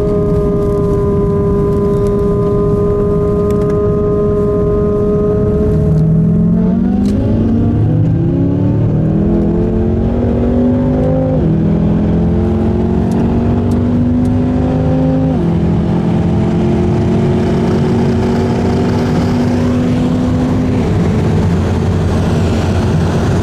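V8 engines of a Ferrari 458 Italia and a tuned BMW M5 F10 in a roll race. They hold a steady note at cruising speed, then from about six seconds in go to full throttle, the pitch climbing and dropping back at three upshifts, over loud wind and road rush.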